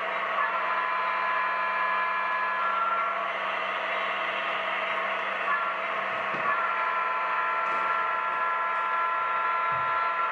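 DCC sound decoders in HO scale Southern Pacific diesel locomotives playing a steady diesel engine run through their small onboard speakers, tinny and steady as the locomotives creep along.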